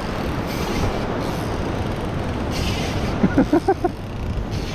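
Wind buffeting the microphone over surf washing against a rock ledge, with a few swells of hiss as waves wash in. About three seconds in, a man's voice gives several short, quick sounds.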